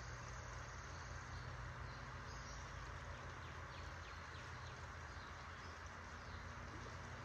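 Steady rushing of creek water, with a few faint high chirps about halfway through.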